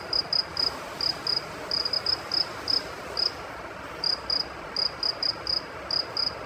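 A cricket chirping: short high chirps, two or three a second at uneven intervals, over a steady background hiss.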